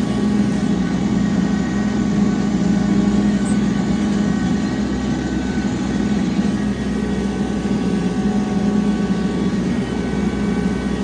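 Tractor engine running steadily under load while driving a bush hog rotary mower cutting field edges, a constant low drone with a few steady high tones over it.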